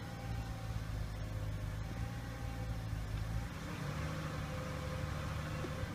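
Ford Territory engine idling steadily just after a cold start in cold weather, heard from inside the cabin.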